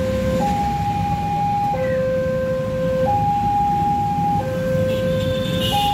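Railway level-crossing warning alarm sounding a loud two-tone hi-lo signal, a high and a low tone alternating, each held a little over a second, warning that a train is approaching before the barriers come down. Motorcycle and car traffic runs underneath, and a higher steady tone joins in near the end.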